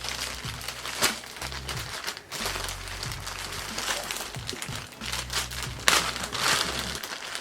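Wig packaging crinkling and rustling in irregular bursts as it is handled and opened, with a few sharper crackles about a second in and near the end.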